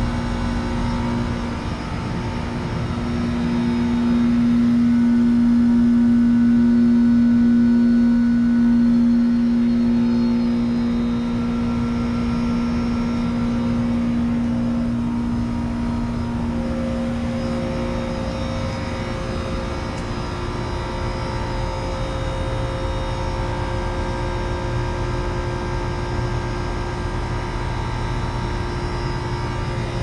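A 2013 Trane XB13 4-ton heat pump's outdoor unit running in its defrost cycle, the compressor giving a steady hum. A strong drone in the hum swells for several seconds early on, then fades out a little past halfway.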